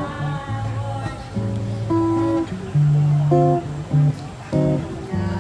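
Guitar music: plucked and strummed guitar playing a run of held notes over a bass line.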